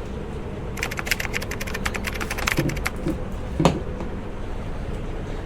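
A quick run of many small, sharp clicks lasting about two seconds, then a single louder click, over a steady low background hum.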